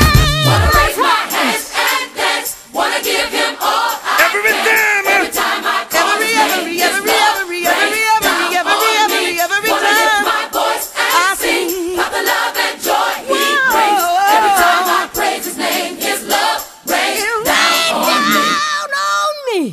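Gospel song with a choir singing over the music. The bass drops away about a second in. Near the end the sound sweeps sharply down in pitch and cuts off.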